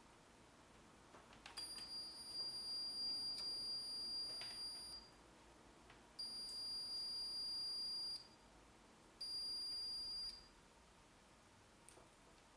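A digital multimeter's continuity beeper sounding three times, one steady high beep each, the first about three and a half seconds long and the later two shorter, signalling continuity through the VTVM probe lead as its switch is worked. Faint clicks come at some of the beep onsets and once near the end.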